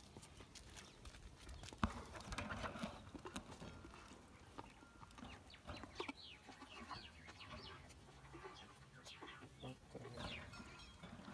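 A calf chewing a mouthful of apple close to the microphone: irregular wet crunching clicks, the sharpest about two seconds in. Short high calls sound in the background.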